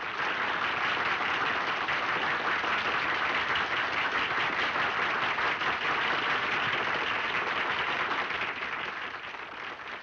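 Audience applauding: dense, steady hand-clapping that thins out near the end.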